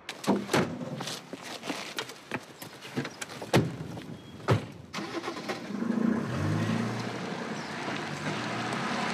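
A run of sharp knocks and clicks, then from about five seconds in a steady low engine-like running sound.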